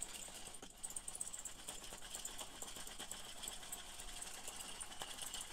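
Faint, rapid ticking and whirring of a plastic film reel spun by hand, winding Super 8 film off its cartridge.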